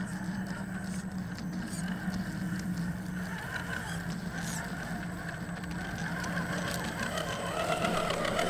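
RC scale crawler's 55-turn brushed motor and geared drivetrain whining steadily as it drives.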